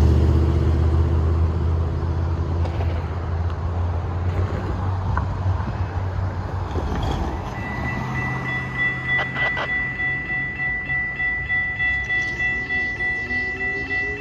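Diesel locomotive engine rumbling and fading away. About halfway through, a railroad grade-crossing bell starts ringing, about two strikes a second.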